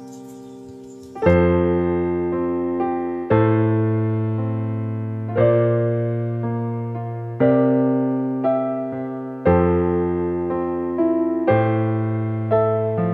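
Background music: slow piano. A chord is struck about every two seconds and fades away, with melody notes between the chords.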